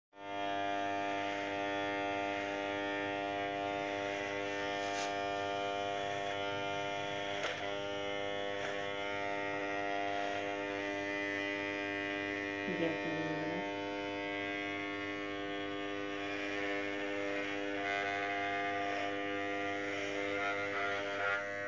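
Corded electric hair clipper running with a steady buzz while it is passed through long hair to shave the head.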